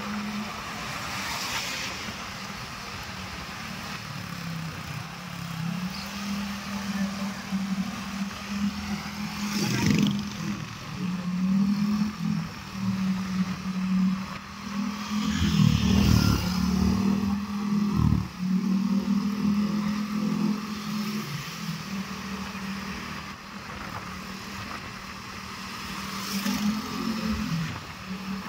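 Vehicle engine running at a steady road speed with air rushing past the microphone. The engine note shifts up and down a little a few times, and there are a couple of louder swells midway.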